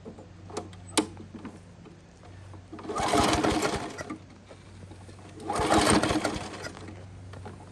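A flathead Briggs & Stratton engine on a Toro Recycler push mower being pull-started twice, turning over rapidly for about a second on each pull without catching, a sign the owners take to mean it could be flooded. A few light clicks come before the first pull.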